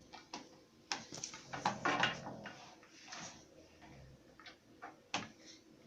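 A run of sharp knocks and clatters, loudest about one and two seconds in and again near five seconds, with a brief low voice-like sound among them about two seconds in.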